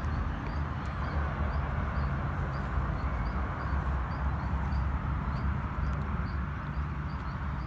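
Steady outdoor background noise with a low hum, and a faint high chirp repeating about twice a second.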